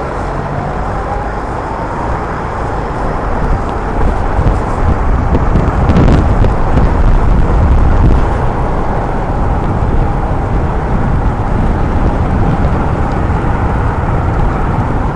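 Wind rushing over a moving rider's camera microphone, with road noise, growing louder from about four seconds in as the rider picks up speed.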